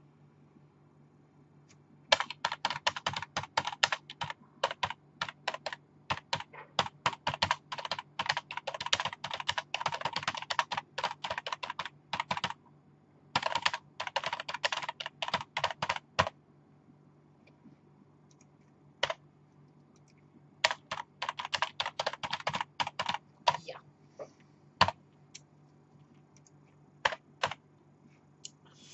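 Typing on a computer keyboard: fast runs of keystrokes for several seconds at a time, broken by short pauses and single taps, with another quick run later on.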